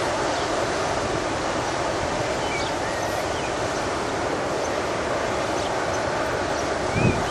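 Distant steam locomotive working a train, a steady rumble and hiss with wind noise over it, and a short low thump near the end.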